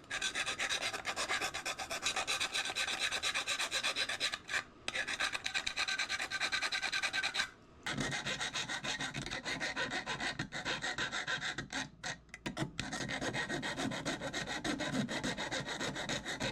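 Hand file rasping over the cut metal edge of a lantern's feeder hole in rapid back-and-forth strokes, smoothing off sharp spots, with a few brief pauses.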